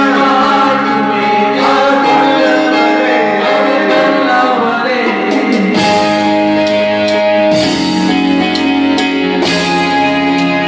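Live worship band playing: sustained keyboard chords under singing, with sharp percussion strikes from about six seconds in.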